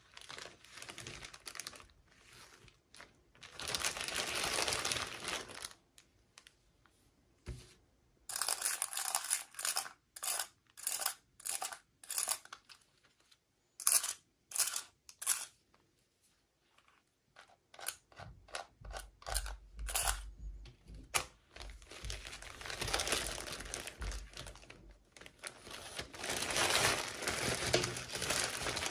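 Toy packaging being crinkled and torn open by hand: long rustling stretches, with a run of short, sharp crinkles about twice a second in the middle and some low handling bumps later on.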